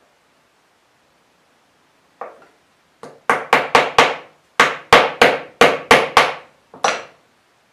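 Small hammer tapping metal pins through wooden knife-handle scales: two soft taps, then about a dozen quick, sharp strikes in two runs, each ringing briefly, with a final strike near the end.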